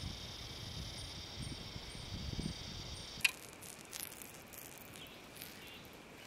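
Steady high insect buzzing with a faint chirp repeating about twice a second over it, and some low rumbles beneath. About three seconds in it cuts off at a sharp click, leaving quieter background with a few faint ticks.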